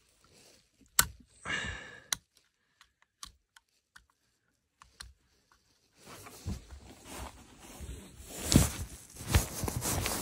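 Scattered sharp clicks of an electric blanket's plastic controller switch being pressed repeatedly, as a blanket that won't warm up is checked. About six seconds in, a louder stretch of fabric rustling and handling takes over, with a few sharper knocks.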